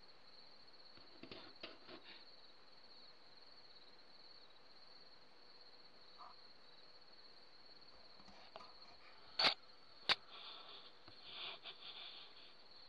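Crickets chirping in a steady high trill, with a few faint rustles and two sharp clicks a little past the middle, about half a second apart.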